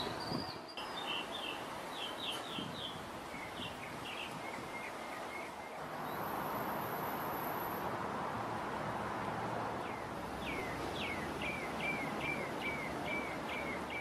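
Small birds chirping in short repeated runs, the quickest run near the end at about three to four chirps a second, over a steady background hiss of outdoor noise.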